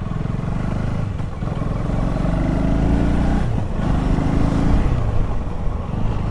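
KTM motorcycle engine pulling away and accelerating. The revs climb, break off briefly about three and a half seconds in, then climb again, as at a gear change. Steady wind and road rumble run underneath.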